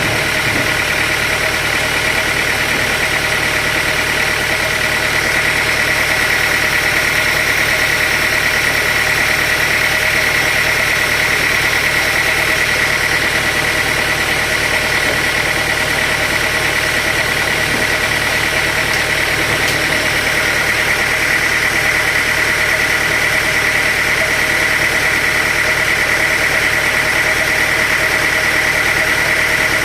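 Sawmill machinery running steadily: a constant engine-like drone with a steady high whine over it.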